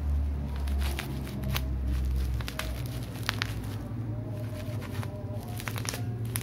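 Plastic bubble wrap crinkling and crackling in a series of irregular sharp clicks as it is handled and cut open with a box cutter, over a steady low hum.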